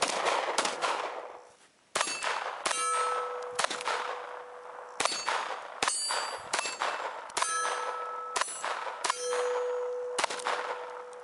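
Gen 4 Glock pistol fired at a slow, steady pace, about a shot a second. Many hits on steel plate targets ring with a clang that hangs on between shots.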